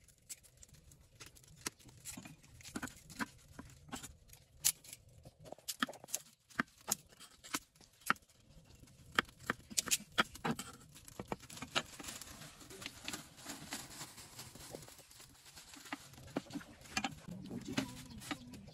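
Cleaver chopping on a round wooden chopping board: scattered sharp knocks at an uneven pace, with soft rustling of garlic skins and herbs being handled between them.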